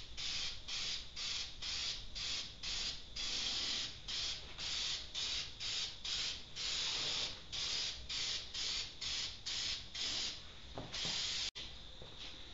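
Aerosol can of high-heat spray paint hissing in short bursts, about three a second, with a few longer sprays in between. The spraying stops abruptly near the end.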